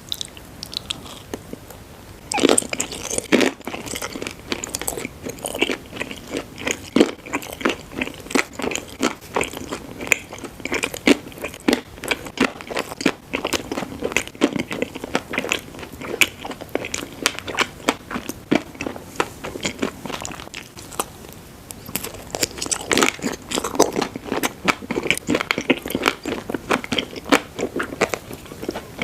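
Close-miked ASMR eating: bites into crisp food and rapid crunching chews. A couple of sharp bites come about two and a half seconds in, crunching runs on, eases off briefly past the middle, then picks up again.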